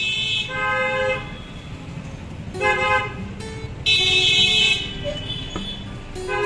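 Street traffic with vehicle horns honking in short blasts, about four times, over a steady low traffic rumble.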